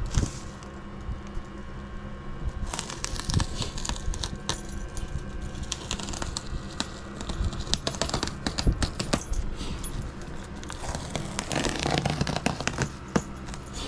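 Scissors snipping and cutting through bubble-wrap packaging around a cardboard box, with crinkling plastic and many small sharp clicks and crackles.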